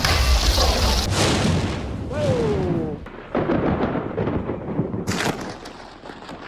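Thunder from close lightning strikes: three sudden loud cracks, about a second, three seconds and five seconds in, each rolling off into rumble, with a short falling tone between the first two.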